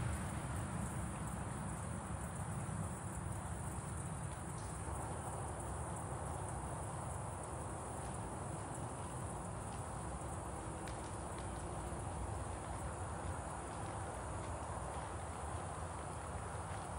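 Insects chirring steadily in the background over a low, even rumble, with a few faint ticks.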